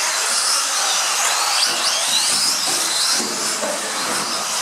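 Several small electric RC off-road cars racing, their motors whining in high pitches that rise and fall as the drivers work the throttle, over a steady hiss.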